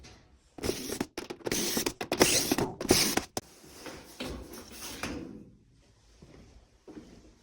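Oven door being taken apart by hand: its metal panels and inner layers scraping, creaking and clattering as they are shifted and lifted out, busiest in the first half and quieter near the end.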